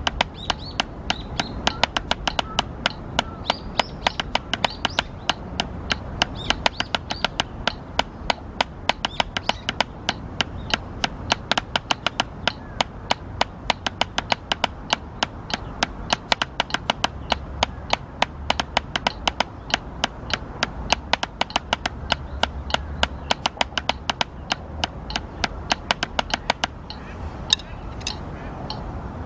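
Drumsticks striking a drum practice pad in an even, steady stroke pattern, several strokes a second. The strokes stop about 27 seconds in.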